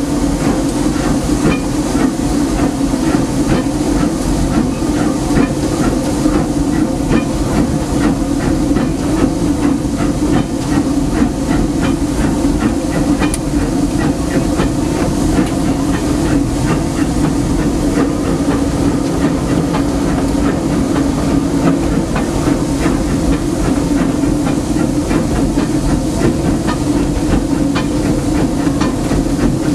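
4-4-0 steam locomotive under way, heard from inside its cab: a steady hiss of steam over the running rumble, with a constant light clatter throughout.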